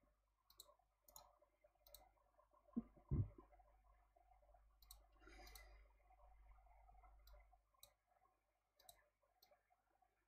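Faint computer mouse clicks, about ten, scattered at irregular intervals. Two low, dull thumps about three seconds in are the loudest sounds.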